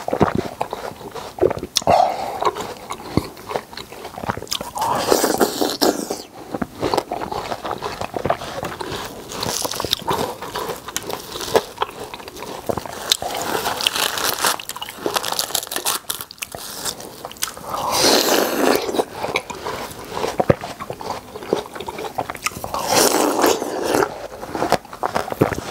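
Close-miked biting and chewing of juicy red watermelon flesh from a yellow-rinded half-moon watermelon: wet crunches, smacks and mouth clicks, with louder bursts of bites every four or five seconds.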